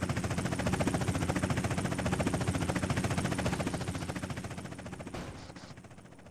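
Helicopter rotor blades beating in a fast, even chop, fading away over the last two seconds.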